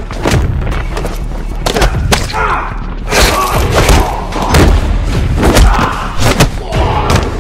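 Fight sound effects: a quick series of heavy punch and kick impacts, thuds landing close on one another, with a man's shouts and grunts between the blows.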